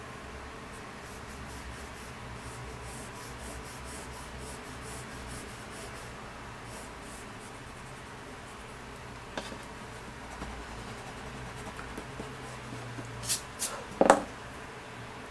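Blue colored pencil shading on sketchbook paper: a run of quick, light, repeated scratching strokes. Near the end come a few sharp knocks as the pencil is lifted from the paper and handled.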